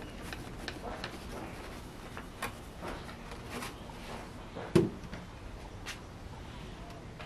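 Dry husk poured from a woven bamboo tray into a clay pot and stirred by hand, giving light rustles and small clicks. A single dull knock comes about two-thirds of the way in and is the loudest sound.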